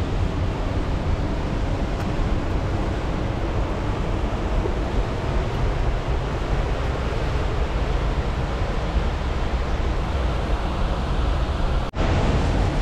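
Steady rush of a fast-flowing mountain river, heaviest in the low end, breaking off for an instant near the end.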